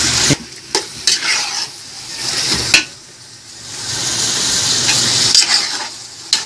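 Ground beef sizzling as it fries in a large aluminium stockpot while a spatula stirs it. The sizzle rises and falls with the stirring, broken by several sharp scrapes and knocks of the spatula against the pot.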